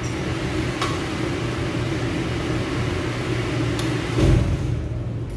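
Steady hum of room ventilation machinery, such as an air-conditioning unit or fan. A couple of faint clicks and a short low thump about four seconds in sit on top of the hum.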